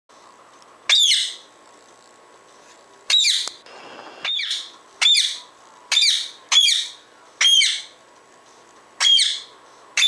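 Indian ringneck parakeet giving about eight short, loud, high-pitched squawking calls at irregular intervals, a second or so apart.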